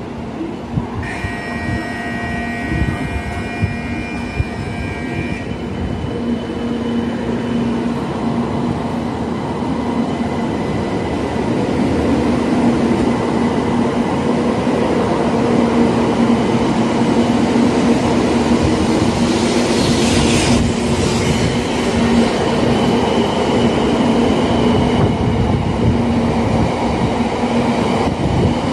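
A Tokaido Shinkansen bullet train runs slowly past alongside the platform, a steady hum and rolling-wheel rumble that grows louder over the first dozen seconds and then holds. In the first few seconds a short cluster of high ringing tones sounds over it.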